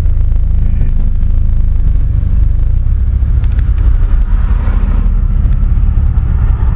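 Engine and road noise of a moving car heard from inside its cabin: a loud, steady low rumble, with a brighter rushing sound building from about four seconds in.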